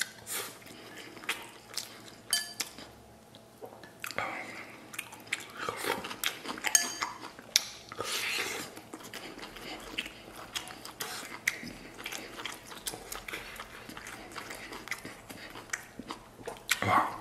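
Eating sounds: chewing and biting soft stewed lamb rib meat off the bone and mouthfuls of rice, with many small sharp clicks at irregular intervals.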